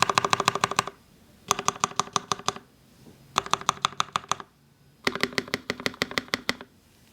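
Prototypist J-01 custom mechanical keyboard with Gateron Lion linear switches, a carbon fibre plate and GMK keycaps, typed on fast in four runs of rapid keystrokes, each about a second long with short pauses between.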